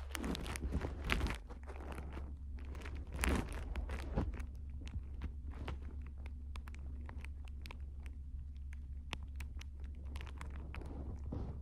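Close rustling and crackling with many scattered small clicks, louder in the first few seconds, over a steady low hum.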